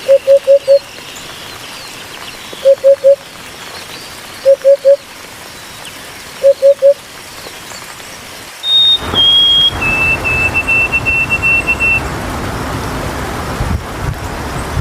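Birds calling: a low hooting bird gives short notes in groups of three or four, repeated about every two seconds. About nine seconds in, a steady background rush comes up, and a higher bird whistles two notes stepping down, then a quick run of repeated notes.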